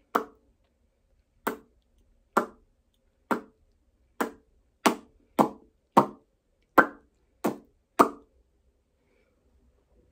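A series of about eleven sharp knocks or taps, irregularly spaced from about half a second to a second and a half apart, each ringing briefly; they stop about two seconds before the end.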